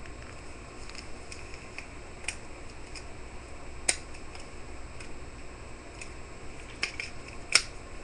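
LG Ally phone's buttons clicking as it is booted into recovery mode: a handful of scattered sharp clicks, the loudest about four seconds in and near the end, over steady microphone hiss.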